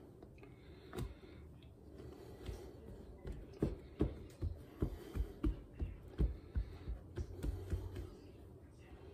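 Soft, dull thumps of hands patting and pressing a sheet of pie dough down over a filled springform pan, a quick run of about two and a half a second that starts a few seconds in and stops near the end.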